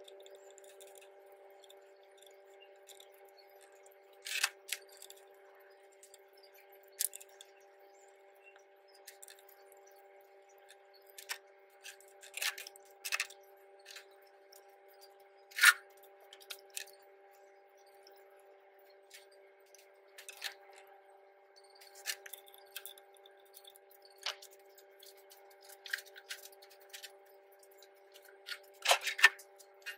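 Scattered light metallic clicks and clinks of hand tools and clutch parts as a motorcycle clutch pressure plate and plates are taken off, the sharpest about halfway through and a quick cluster near the end. A steady hum runs underneath.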